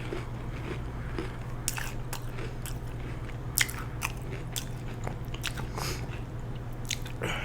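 Close-up chewing and biting of food, with irregular sharp crunchy clicks over a low steady hum.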